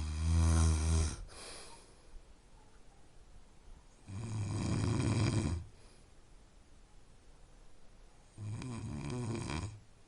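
A person snoring: three snores, each lasting about a second and a half, coming about every four seconds, with the first the loudest.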